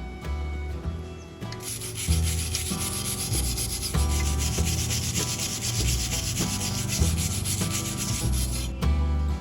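Electric arc welding: a steady, dense crackle that starts about a second and a half in and cuts off abruptly near the end, as the arc is struck and then broken. Guitar music plays underneath.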